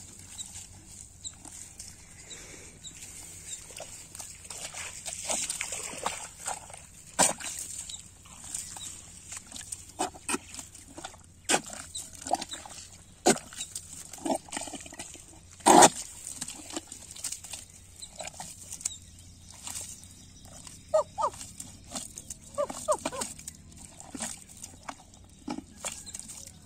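Bare hands digging into a mud crab burrow in waterlogged paddy soil: irregular wet squelches, slaps and scrapes of mud, the loudest about halfway through.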